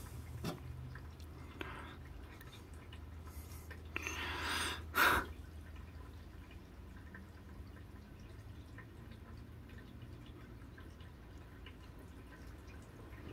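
Light rain dripping, heard from indoors: small scattered drips over a steady low hum. A brief rushing swell about four to five seconds in is the loudest moment.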